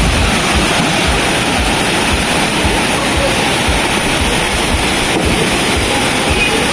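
Waterfall pouring steadily, a loud, even rush of water, with low wind rumble buffeting the microphone now and then.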